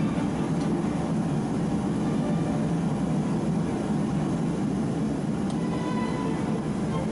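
A gas torch flame roaring steadily: an even low rumble with no strikes in it.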